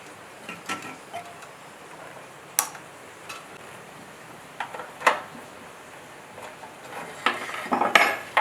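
Scattered light clicks and knocks of tools and parts being handled during a generator repair. Single knocks come a few seconds apart, then a quick run of clatter near the end.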